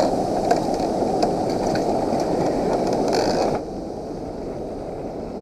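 Steady rushing wind noise on the camera microphone, with a few faint clicks, dropping quieter about three and a half seconds in.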